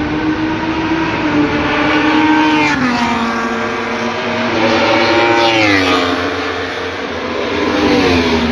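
Superbike engines at high revs passing at speed, three times in a row. Each engine note swells louder, then drops in pitch as the bike goes by.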